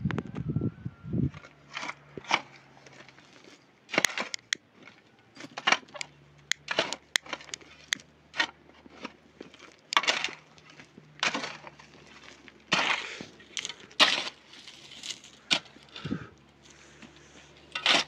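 Dry, stony earth being dug with a short-handled hand tool: irregular chops and scrapes, roughly one a second, some dragging out longer through loose dirt and gravel.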